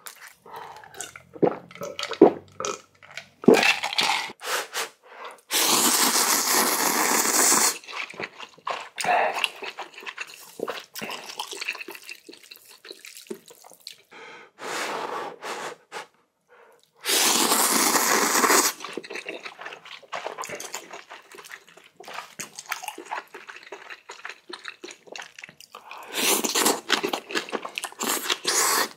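A person loudly slurping ramen noodles in two long pulls, each about two seconds, one about six seconds in and one about seventeen seconds in. Between the slurps come wet chewing and smacking sounds.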